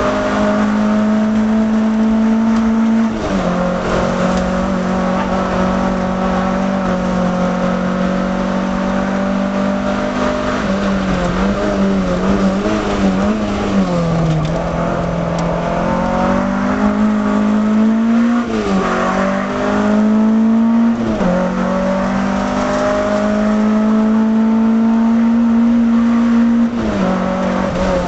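Peugeot 305 GTX's 1.9-litre four-cylinder engine pulling hard uphill, heard from inside the cabin. The engine note holds high, falls sharply about three seconds in, twice around two-thirds of the way through and again near the end, climbing back each time. Through the bends in the middle the revs dip and rise.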